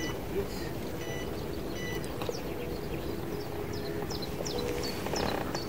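Lakeside outdoor ambience: a steady low rumble of background noise with faint small-bird chirps repeating, mostly in the second half. Three short faint pips about a second apart near the start.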